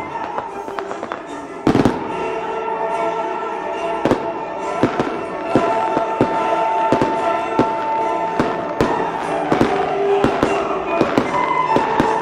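Aerial fireworks launching and bursting in a rapid string of bangs, the loudest about two seconds in, with music playing underneath.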